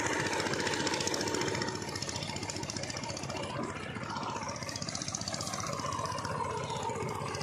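Sonalika DI 50 RX tractor's diesel engine idling steadily, a little louder in the first second and a half.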